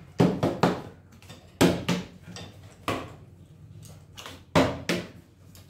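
Partly filled plastic water bottle being flipped and landing on a wooden tabletop: a series of sharp knocks and thuds, several coming in quick pairs or triples as it bounces.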